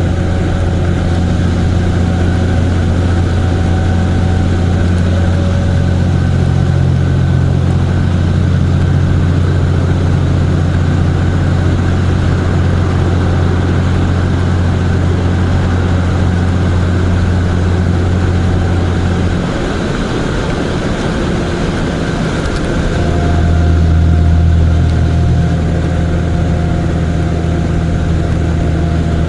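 Vehicle engine running steadily while driving, with road and wind noise. The engine note drops off about twenty seconds in and picks up again a few seconds later at a different pitch, as on a gear change or a change of speed.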